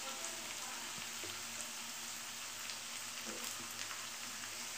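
Freshly added chopped onions sizzling steadily in hot oil in a frying pan, with a few faint crackles.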